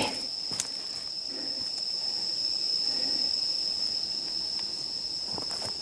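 Night insects calling: one steady, unbroken high-pitched trill of a cricket-type insect.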